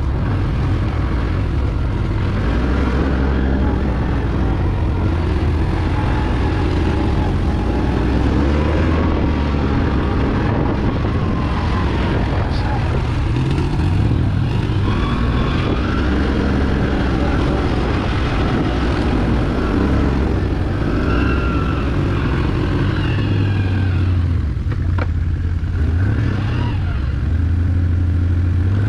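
Can-Am ATV engine running under way, its note rising and falling with the throttle.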